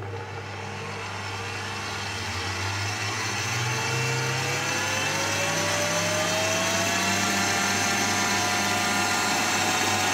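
Electric stand mixer running, its whisk beating a meringue for buttercream. The motor's whine climbs in pitch and grows louder over the first several seconds, then holds steady.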